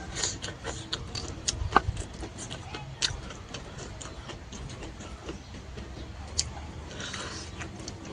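Close-up eating sounds: irregular wet clicks and smacks from chewing, with a few sharper clicks.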